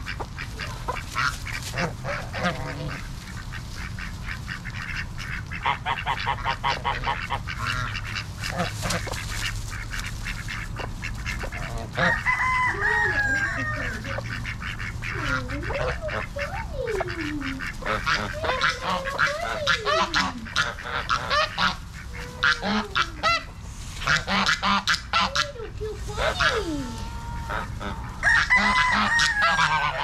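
A flock of domestic geese and ducks calling, with loud honks about 12 seconds in and again near the end, and low sliding calls in between, over a run of many short clicks.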